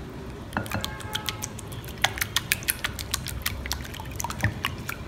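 A whisk beating eggs in a glass bowl: quick, irregular clicks and taps of the whisk against the glass, mixed with the wet sound of the egg being beaten.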